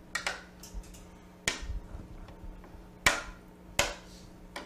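A metal serving spoon clinking and scraping against a casserole pan and a ceramic serving plate as roasted food is spooned out: about five sharp, separate clinks spread over a few seconds.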